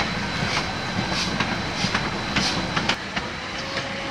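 Narrow-gauge steam train on the move: a steady running rumble with a regular beat of short hissy bursts, a little under two a second. The beat eases and the sound drops a little about three seconds in.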